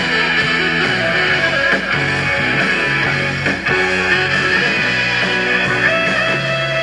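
Live rock band playing, with electric guitar to the fore over bass.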